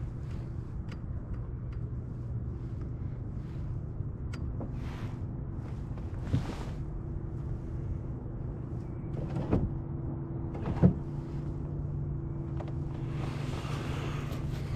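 Electric trolling motor running with a steady hum, repositioning the kayak on a fresh battery. A few knocks are heard, the loudest about eleven seconds in, and a hissing swell comes near the end.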